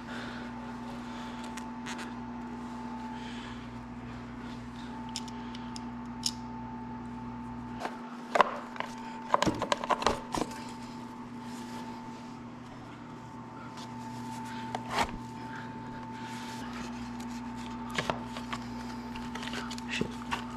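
A steady low hum with scattered clicks, knocks and clinks of tools and metal parts being handled. The loudest cluster comes about eight to ten seconds in, with a few more later.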